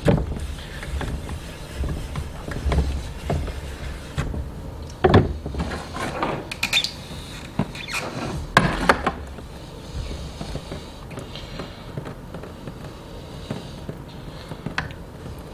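Knife blade scraping and rubbing on a wet 3000-grit Naniwa Superstone waterstone in irregular strokes, the loudest few about five to nine seconds in, over a low steady hum.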